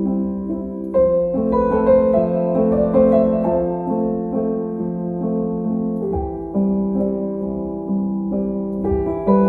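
Background music: a piano playing a slow, gentle melody over sustained chords, with notes struck about once a second.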